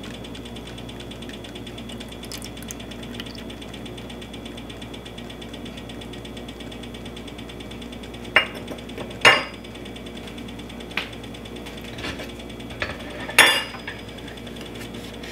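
A steady low hum, then over the second half a handful of sharp clinks and knocks of kitchenware being handled and set down, two close together a little past the middle and the loudest near the end.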